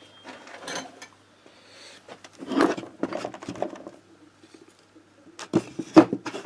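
Metal hand tools clinking and knocking against metal parts: a burst of clatter about two and a half seconds in and a few sharp knocks near the end.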